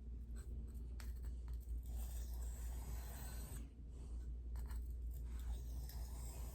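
Knife blade being drawn across a sharpening stone: a gritty scraping hiss in two long strokes, a few light ticks before the first.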